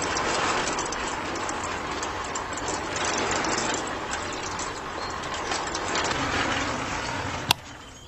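Miniature homemade concrete mixer's small electric motor turning its tin-can drum of wet cement, a dense, steady rattle. It cuts off with a sharp click near the end.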